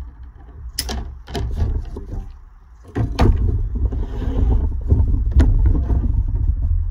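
Tin snips cutting a thin strip of sheet lead for a welding stick, a few sharp snips in the first second and a half. After about three seconds the lead sheet is handled and moved, with more clicks over a heavy low rumble on the microphone.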